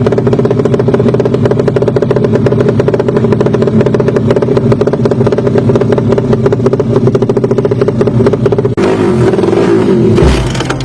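Motorcycle engine held at high, steady revs, loud with a fast even pulse. About nine seconds in it cuts abruptly to a rougher, different engine sound.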